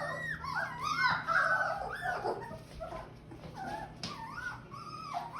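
Very young puppies, 17 days old, whimpering and squeaking: a string of short, high cries that rise and fall, several a second, easing off toward the end.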